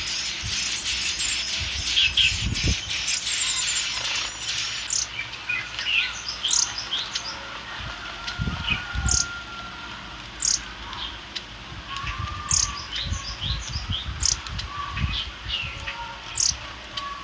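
Young bird chirping: short, high, falling peeps repeated irregularly. A steady high insect drone runs underneath, with scattered low thumps.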